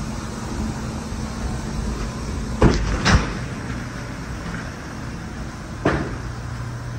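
A pickup's cab door being shut: two sharp knocks about half a second apart near the middle, and another knock near the end. A steady low hum runs underneath.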